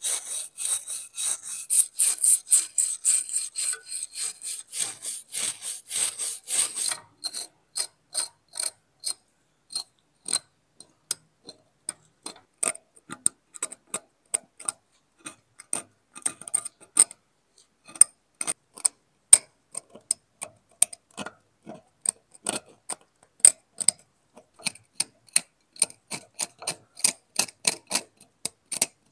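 Sharp mechanical clicking. It is rapid and dense, with a high metallic ring, for about the first seven seconds, then turns into sparser, irregular clicks and ticks.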